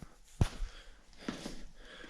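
A single sharp click about half a second in, followed by faint breathing and rustling close to the microphone.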